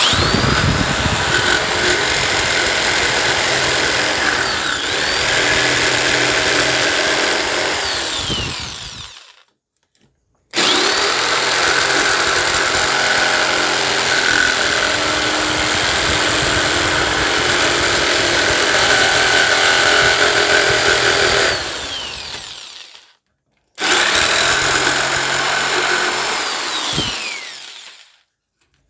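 Electric jigsaw cutting a thin wooden board, started and stopped three times. Each time the motor spins up with a rising whine, runs steadily as the blade cuts, then winds down when the trigger is let go. The first run lasts about nine seconds, the second about twelve and the last about four.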